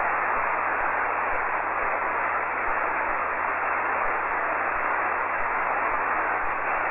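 Steady hiss of band noise from a shortwave radio receiver on the 40-metre band, heard as an open channel between transmissions, with a faint low hum underneath.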